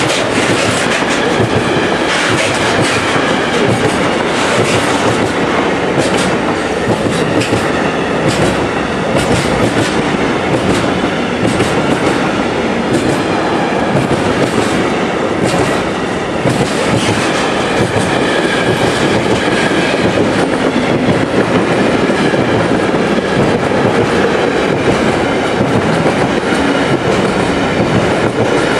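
Freight train wagons rolling past close by: a loud, steady clatter of steel wheels with many quick clicks over the rail joints.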